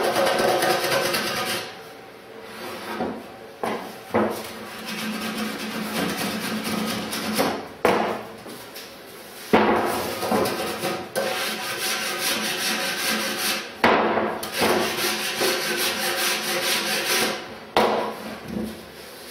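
Small block plane shaving the wooden loom of a Greenland kayak paddle: a scraping hiss with each cut, in repeated strokes with uneven pauses between.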